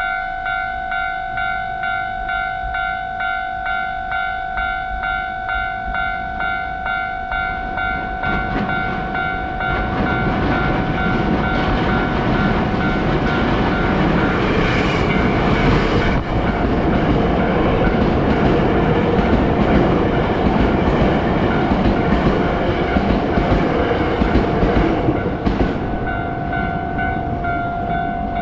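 Japanese railway level-crossing warning bell ringing steadily, just under two dings a second. From about ten seconds in to near the end, a train runs past over the crossing, its rumble louder than the bell, then the bell is left ringing on its own.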